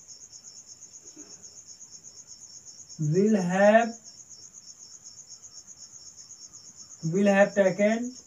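Insect chirping: a steady, high-pitched trill of rapid, even pulses.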